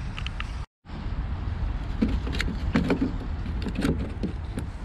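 Scattered light clicks and knocks of parts being handled while the tailgate's handle trim is taken apart, over a steady low rumble. The sound cuts out completely for a moment just under a second in.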